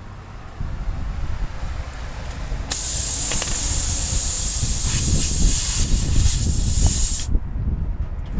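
Pressurised air hissing hard for about four and a half seconds, starting and cutting off abruptly, during a tyre puncture repair, over a steady low rumble.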